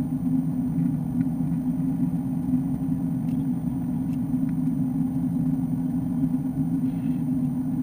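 Steady cabin drone of an Airbus A330-200 in flight: engine noise and airflow heard from a window seat, low and even, with a few faint clicks.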